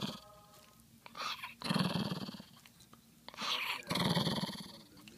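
White toy poodle growling in two long growls, one about a second in and another past the middle, each lasting about a second and a half. It is an angry warning growl from a dog woken from sleep.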